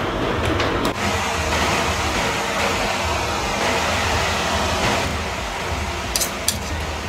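Steady rushing noise with a low rumble, broken by a few light clicks of a fork and plate, twice in quick succession near the end.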